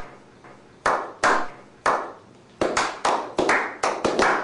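A slow clap by a small group of men: single hand claps about a second apart that speed up after about two and a half seconds into quicker clapping, around three claps a second.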